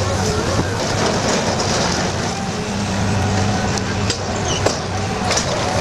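Tracked pile-drilling rig built on a Liebherr excavator base, running steadily with its diesel engine droning and a wavering higher tone over it. There are a few sharp metal knocks in the last two seconds.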